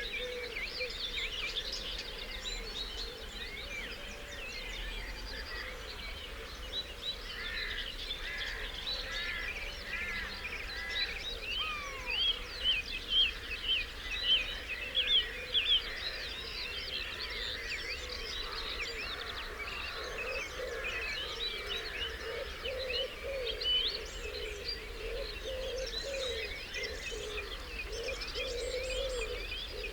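Dawn chorus: many songbirds singing at once in overlapping high chirps, whistles and trills. A few louder phrases come about halfway through, and a lower, repeated call joins in for the second half.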